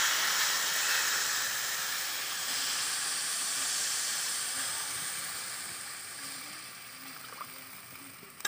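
Water poured into a hot steel karahi of spice-fried rice, hissing and sizzling as it hits the hot pan and oil. The hiss slowly dies down as the pan cools under the water.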